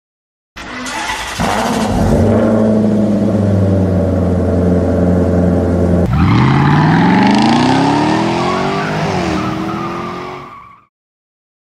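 Dubbed car engine sound effect. A steady engine note starts suddenly. About halfway through it cuts to an engine revving up in rising pitch as the car accelerates, dips briefly, then fades out.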